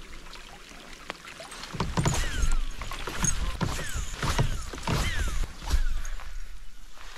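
Wind buffeting the camera microphone in a rainstorm, with rain drops tapping. It is gusting and uneven, and sets in strongly a couple of seconds in. A few short whistles fall in pitch over it.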